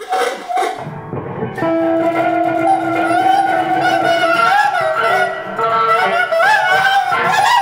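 Freely improvised music for electric guitar and a wind instrument. The archtop guitar, laid flat and played with an object on its strings, and the horn make sharp attacks at the start, then sustained tones that waver and bend in pitch over a steady lower note.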